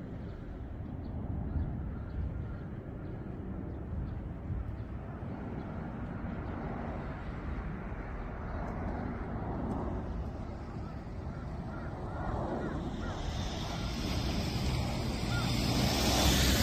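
Boeing 737-900 airliner's CFM56-7B jet engines on landing approach: a steady rumble that swells louder over the last few seconds, a rising hiss joining it as the jet draws near.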